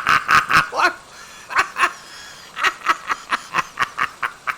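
A man laughing in quick staccato bursts: a run of pulses that breaks off about a second in, a couple of single bursts, then a longer run that trails away near the end.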